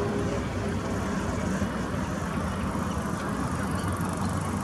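Steady low rumble of a diesel locomotive moving slowly through a road level crossing, with road vehicles idling close by.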